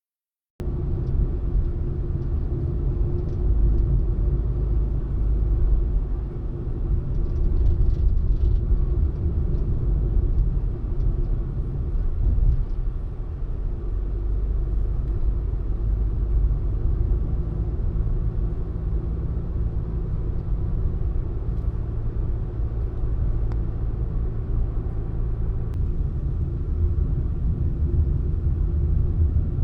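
Low road and engine rumble of a Honda N-VAN kei van driving, steady with a few swells in level.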